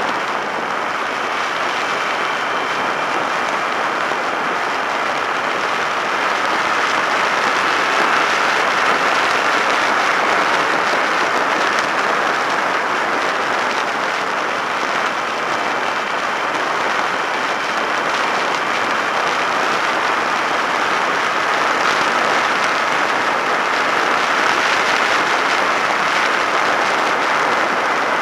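Steady rush of wind and road noise over the microphone of a Drift HD170 action camera on a moving Suzuki SV650S motorcycle, growing a little louder about six seconds in.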